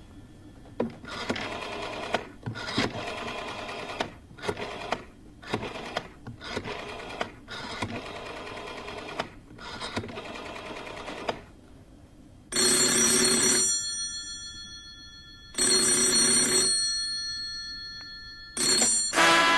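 A telephone bell ringing, each ring about a second long and the rings about three seconds apart, starting about twelve seconds in. Before the ringing comes a stretch of uneven clicks and rattles. The whole passage is a sound effect opening a song on a music recording.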